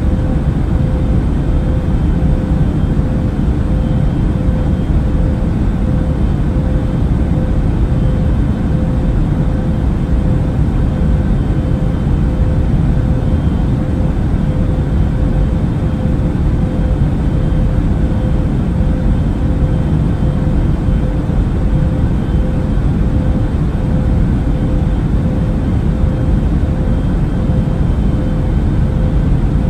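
Steady airliner cabin noise in flight: a constant low rumble of engines and airflow, unchanging throughout, with a faint steady hum on top.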